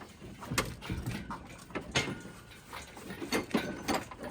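Scattered metallic knocks and clunks from the engine and transmission shifting in the engine bay as they are lifted out, a sharp knock every half second to a second.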